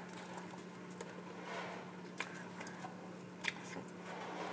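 A few faint clicks and rustles as goldfish crackers shift on a plate under a peanut-butter-coated pretzel stick being dipped into them, over a steady low hum.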